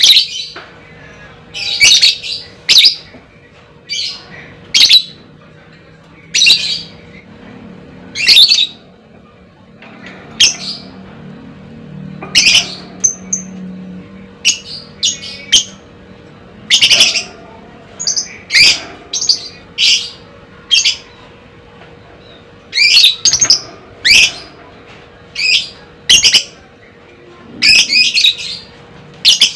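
Lovebird giving short, loud, high-pitched chirping calls one after another, about one a second, with a sparser stretch in the middle.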